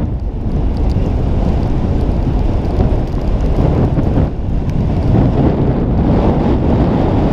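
Wind buffeting a camera microphone while skiing or snowboarding downhill, a loud, steady low rumble, mixed with the slide of the filmer's skis or board over snow.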